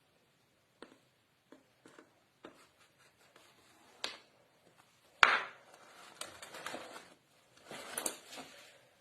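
A knife working through a tray of chocolate basbousa: a few light clicks and taps against the dish, a sharp knock about five seconds in, then scraping as pieces are worked loose.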